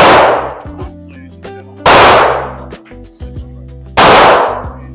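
Three pistol shots from a TriStar Glock-clone handgun, about two seconds apart, each a sharp crack with a long fading tail. Background music plays underneath.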